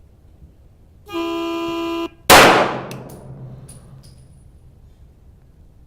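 A steady electronic beep lasting about a second, the start signal for a timed-fire string, then a single loud shot from a CZ P-10F 9mm pistol a moment after the beep ends, ringing out for about a second, with a few faint clinks after it.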